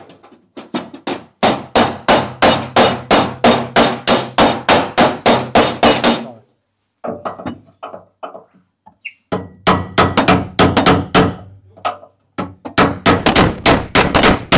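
Body hammer rapping quickly on the steel rear panel of a classic Lancia coupe while a frame-bench puller holds it under tension, working the crease out. The blows come about four a second in three runs, with short pauses between.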